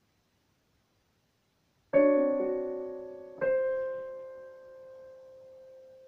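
Digital piano: a chord struck about two seconds in and left to fade, then a second chord a second and a half later, held and slowly dying away.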